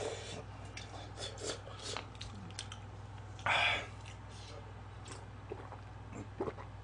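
Close-up eating sounds: chewing and small wet mouth clicks while eating cup ramen, with a short loud rush of noise about three and a half seconds in. Near the end, a few soft gulps as he drinks from a can of soda.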